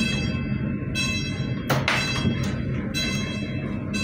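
A railway warning bell strikes about once a second and rings on between strokes, over the low rumble of the slowly moving train. There is one sharp clack about two seconds in.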